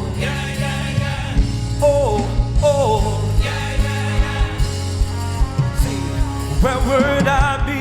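Live gospel praise music: a band playing over a steady drum beat, with a singer's wordless vocal runs twice.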